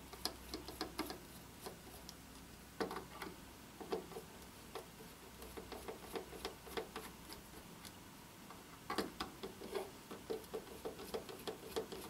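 Phillips screwdriver unscrewing the small screws of an airsoft rifle's hop-up unit: a string of quiet, quick clicks and ticks in irregular clusters as the screwdriver works the screw heads.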